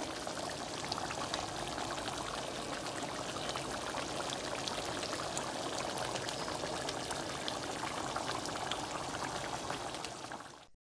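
Thick oxtail gravy simmering in a pot, a steady bubbling with many small pops. It fades out near the end.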